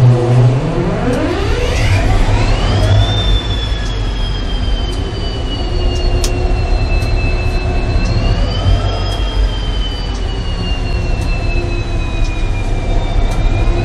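WDP4D diesel-electric locomotive's EMD 16-710 two-stroke V16 diesel engine being cranked and started. A deep rumble is joined by a high whine that climbs steeply for about three seconds. The whine then holds steady over the running engine, swelling briefly about eight seconds in.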